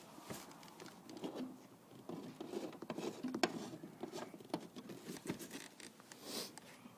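Irregular small clicks, scratches and rustling from hands working a car tail light assembly and its fixing screws into place.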